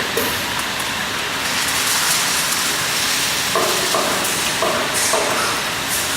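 Steady, loud hissing noise of factory machinery, with a few short mid-pitched sounds repeating about halfway through.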